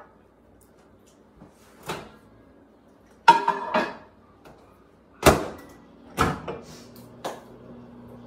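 Over-the-range microwave being loaded: knocks and clatter as the door is opened and a bowl is set inside, a bang as the door is shut about five seconds in, then the microwave starts and runs with a steady low hum.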